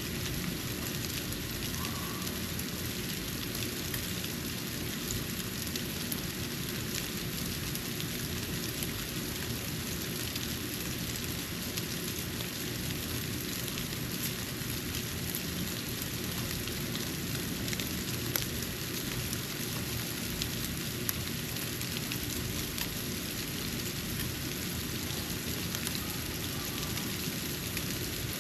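Snow falling onto a porch: a steady hiss with many faint ticks of flakes landing, and a few louder ticks about two-thirds of the way through.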